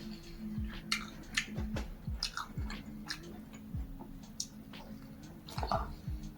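A person chewing a mouthful of a rolled flatbread wrap close to the microphone, with wet mouth clicks and smacks at irregular intervals.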